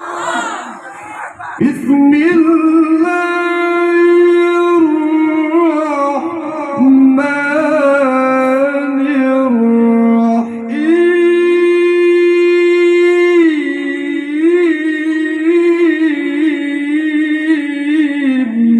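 A male qari reciting the Qur'an in the melodic tilawah style, with no instruments: one voice starts a new phrase after a short breath about a second and a half in, then holds long steady notes with ornamented wavering runs between them.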